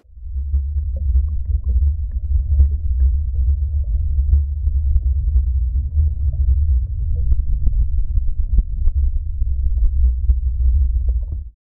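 Muffled low rumble of churning, bubbly water picked up by a camera held underwater, with faint small clicks; it cuts off abruptly near the end.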